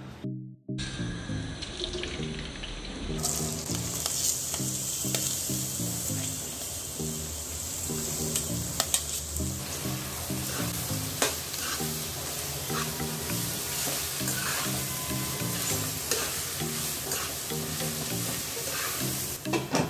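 Chopped onions frying in oil, with a steady sizzle, while a metal spatula scrapes and taps against the pan as they are stirred. Background music with a repeating melody plays under it.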